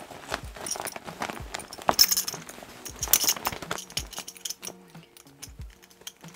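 Background music with a steady bassline, over which the metal zips and buckles of a shiny faux leather biker jacket jingle and clink twice, about two and three seconds in.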